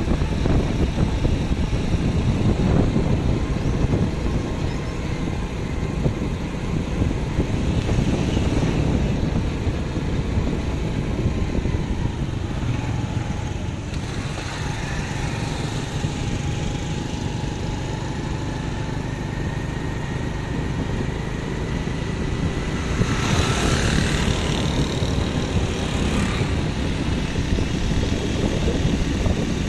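Steady low rumble of a motor vehicle moving along a street. A louder hissing passage lasts a few seconds, about three-quarters of the way through.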